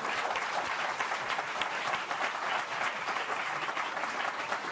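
Live studio audience applauding steadily, many hands clapping at once.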